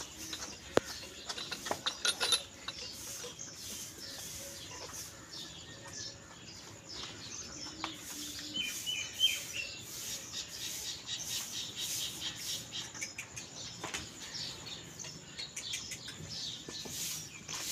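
A calf suckling at a cow's udder, with irregular wet smacks and clicks, while small birds chirp, including a quick run of three or four chirps about halfway through.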